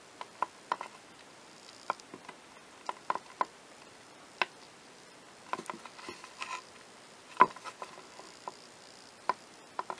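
Faint, irregular small clicks and taps of fingers handling a clock's hour hand while pressing it onto the centre shaft of the movement. The sharpest click comes about seven and a half seconds in.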